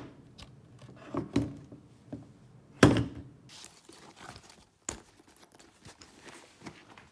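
A series of separate dull thunks and knocks, the loudest nearly three seconds in. They are a camera body being bumped against a hard surface: the kind of small knock that a repairer counts as a drop.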